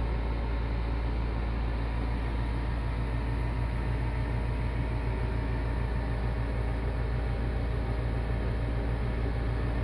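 Steady low rumble with no breaks or changes.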